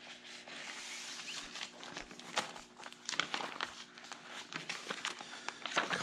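Plastic sheet protectors in a three-ring binder rustling and crinkling as pages are turned, with light clicks and taps throughout, over a faint steady hum.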